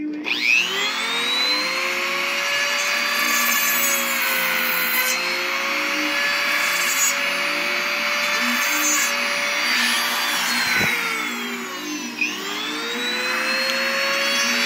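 High-speed rotary carving tool spinning up with a sharply rising whine as it starts, then running steadily while its bur grinds the walrus ivory. About ten seconds in the whine falls as the tool slows, and about twelve seconds in it rises again as the tool speeds back up.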